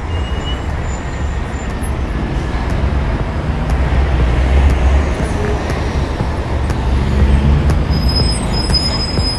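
Busy street noise with a steady deep rumble of traffic.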